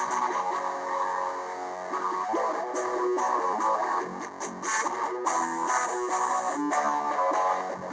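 Rock song, instrumental passage: guitar riffing in a low F# tuning, with strummed chords and sharp percussive hits.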